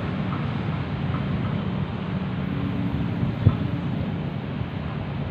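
Steady low rumble of a CC206 diesel-electric locomotive engine approaching from a distance, with one short thump about three and a half seconds in.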